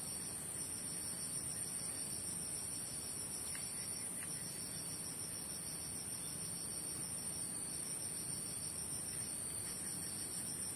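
Steady, unbroken high-pitched drone of an insect chorus.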